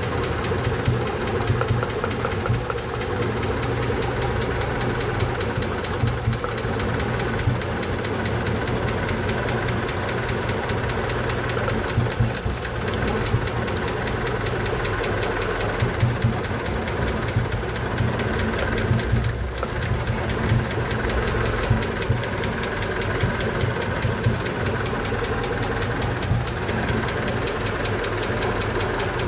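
A 1988 Honda engine idling steadily with a fast, even ticking noise over the engine hum: the tick the owner cannot account for.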